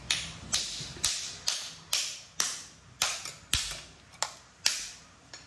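Knife chopping on a cutting board: about eleven sharp strikes, roughly two a second, spaced a little wider and fainter near the end.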